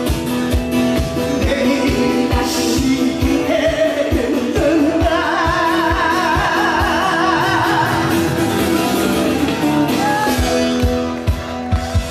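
A voice singing with wide vibrato over amplified music with a steady thumping beat.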